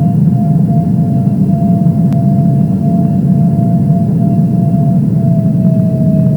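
Jet airliner engine noise: a steady low drone with a thin, steady whine above it that sinks slightly in pitch near the end.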